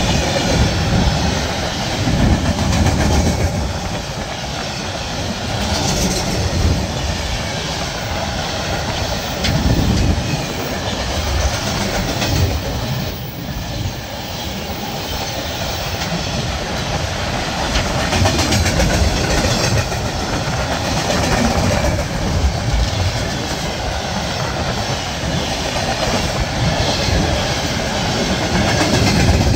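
Freight train of open gondola wagons rolling past on the near track, its wheels clattering over the rail joints in a steady, repeating clickety-clack.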